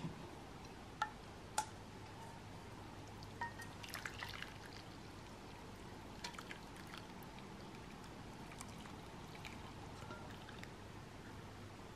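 Syrup being poured from a saucepan through a fine metal mesh strainer into a glass bowl, a faint pour and drip. A few light clicks, two sharp ones about a second in and a cluster around four seconds, stand out above the pour.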